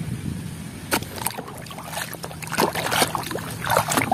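Muddy, foamy water sloshing and splashing in a basin as a plastic toy is scrubbed and swished by hand, in irregular splashes that grow busier near the end.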